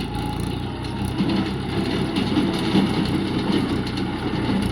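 Heavy diesel engine running steadily at a low, even speed.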